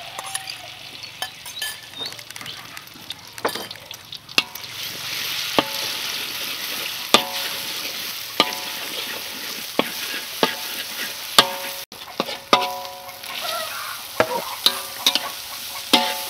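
Beaten egg sizzling in hot oil in a steel wok, with a metal spatula scraping and striking the wok as the egg is scrambled and then stirred with vegetables. The sizzle grows louder a few seconds in, and each spatula strike rings briefly, about once a second.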